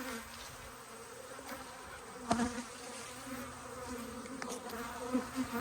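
Honey bees buzzing around an opened hive, a steady drone, with a single sharp knock about two seconds in and a few lighter clicks near the end.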